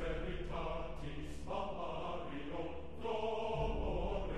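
Soundtrack music of sustained choral chanting, its held notes changing every second or so.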